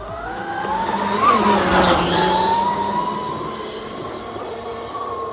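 Electric motorcycle's motor and chain drive whining as it accelerates past along a dirt track, the whine rising in pitch, loudest about a second and a half in with a rush of tyres on gravel, then holding steady and fading as it rides away.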